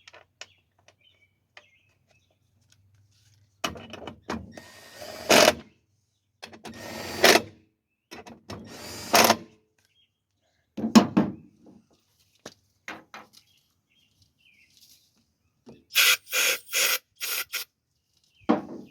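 A power drill or driver running in three runs of one to two seconds that each build up, then about five short quick bursts near the end, consistent with fastening the cover back onto a push mower's engine.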